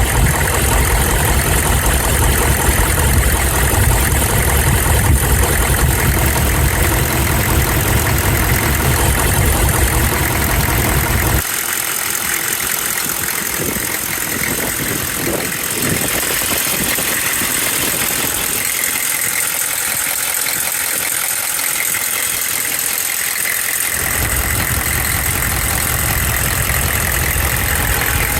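6.5L turbodiesel V8 idling with a tapping or knock sound. The deep low end drops away abruptly about eleven seconds in and comes back near the end.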